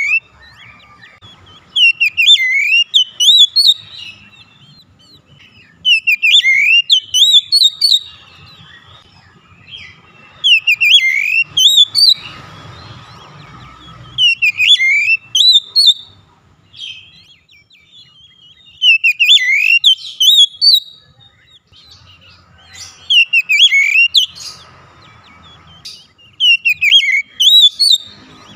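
Oriental magpie-robin (kacer) song: loud phrases of whistled notes that sweep down and up, each phrase about two seconds long and repeated roughly every four seconds.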